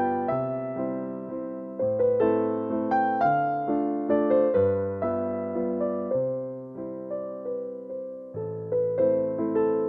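Background music: solo piano, single notes and chords struck and left to fade.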